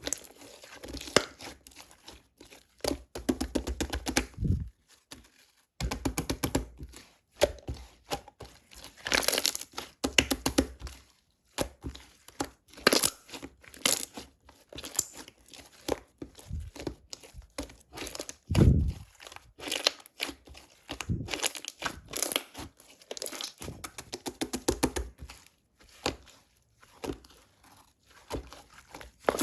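Close-up crinkling and tearing of a crinkly material being handled, in bursts a second or two long with short pauses between.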